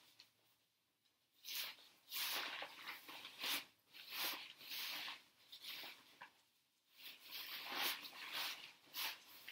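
Nylon tent fabric rustling and crinkling in irregular bursts as a tent pole is worked through the tent's sleeve by hand.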